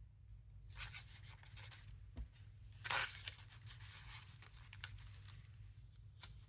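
Paper and cardstock rustling and scraping as a small journal card is slid into a paper pocket, with the loudest scrape about three seconds in and a few light clicks of handled paper.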